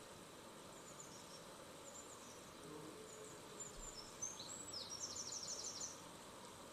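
Faint bird chirps with short falling glides, ending in a quick trill of about eight notes, over a steady hiss.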